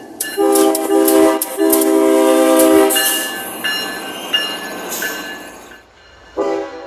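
Locomotive air horn blowing a short blast and then a longer one over the noise of the passing train, with a high ringing tone repeating a few times after it; the horn sounds again near the end.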